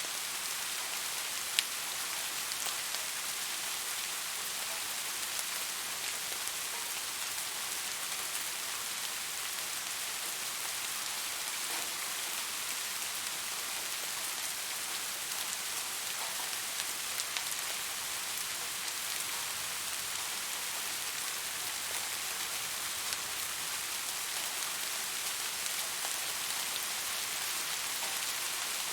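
Steady rain falling, an even hiss scattered with small drop ticks, with one sharper drop tick about a second and a half in.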